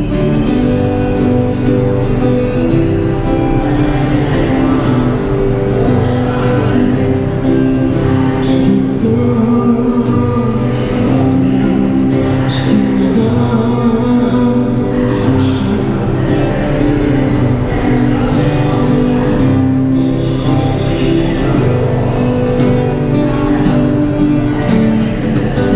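Acoustic guitar played with a man singing over it, amplified through a microphone and a small street amp, as a steady song.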